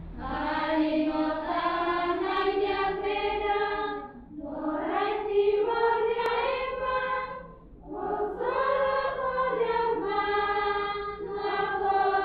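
A choir singing slow, held phrases, with short breaks about four seconds in and again near eight seconds.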